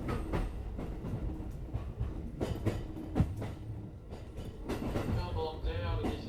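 JR West 205 series electric train running, heard from inside the car: a steady low rumble of wheels on rail with repeated clickety-clack over the rail joints.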